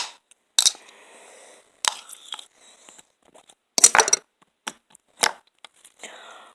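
A spoon knocking and scraping against the inside of a container as it scoops out melted glitter slime, in irregular short knocks and scrapes.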